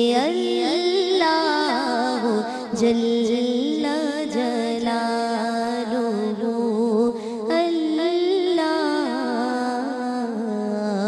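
A woman singing a naat into a handheld microphone: long, gliding melodic phrases over a steady low drone.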